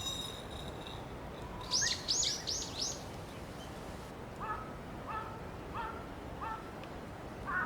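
Wild birds calling outdoors over a steady low rumble of wind. About two seconds in comes a quick series of four bright, high, arching calls, followed by a run of shorter, lower calls repeated about every two-thirds of a second.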